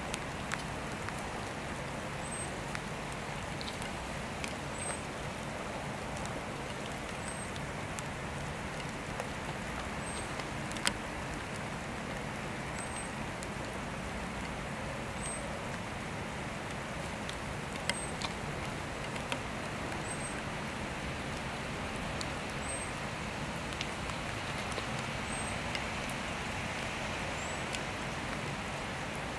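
Steady rain falling, with a few sharp ticks of single drops striking close by, over a low steady hum.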